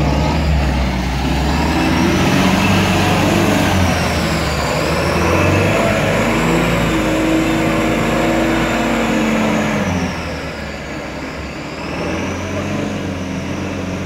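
UAZ-469's engine revving hard under load as the vehicle pushes through deep mud, its pitch rising and falling with the throttle. It drops back somewhat about ten seconds in.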